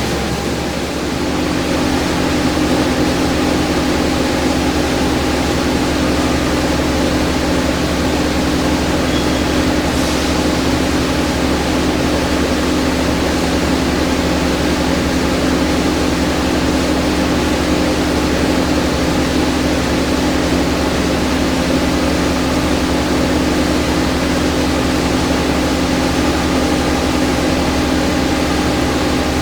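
Electric drive of a Profax WP-1000 welding positioner running steadily: a continuous machine hum with a few steady tones over a broad noise, which steps up about a second in and then holds.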